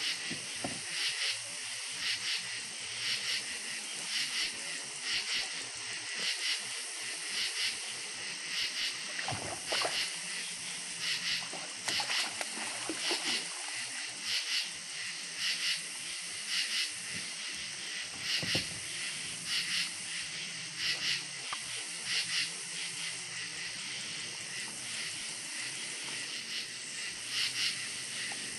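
Night chorus of calling insects: raspy, high chirping pulses repeating about every two-thirds of a second over a steady high hiss. A few soft low knocks from handling in the kayak come partway through.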